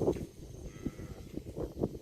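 A cow gives a short low moo near the start, followed by several scattered low thuds.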